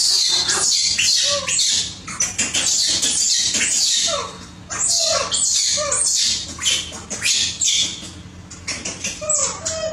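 Baby macaques screeching over and over: shrill, falling squeals several times a second, easing off near the end.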